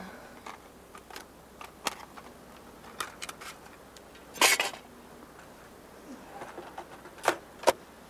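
Scattered clicks and light clatter of small hard objects being handled, with a louder rattle about four and a half seconds in and two sharp clicks near the end.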